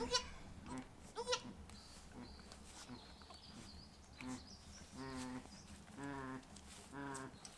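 Faint, low bleats of a Boer goat doe in distress: one call about a second in, then three calls about a second apart near the end. The owner takes her struggling for bloat rather than labour.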